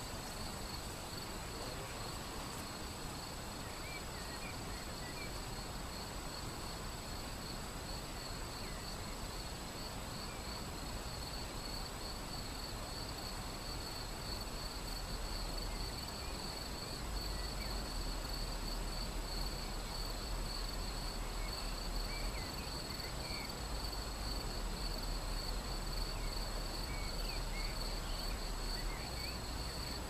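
Shallow river flowing over stones, a steady rush, under a continuous high pulsing insect trill, with a few faint bird chirps. A low rumble comes in about halfway.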